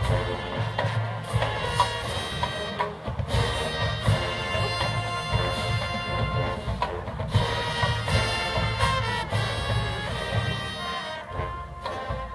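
Marching band playing an 80s pop medley: brass carrying the tune over a steady drum beat.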